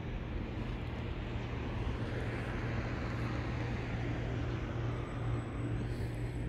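Steady low machine hum with continuous outdoor background noise, swelling slightly in the middle.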